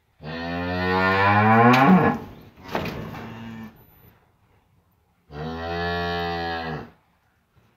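Cow mooing twice: a long low moo that rises in pitch, then a shorter, steadier moo about five seconds in.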